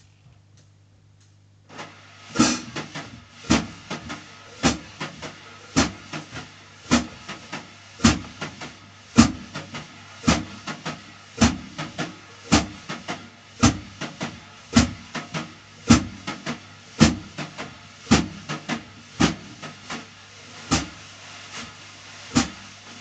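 Snare drum played with wire brushes: a continuous swish of the brushes across the head starts about two seconds in, with an accented tap about once a second and lighter taps between.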